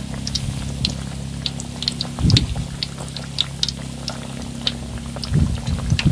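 Battered banana fritters deep-frying in hot oil, a steady crackle of small pops as the batter puffs up. A low steady hum runs underneath, with a couple of brief low thuds, about two and five seconds in.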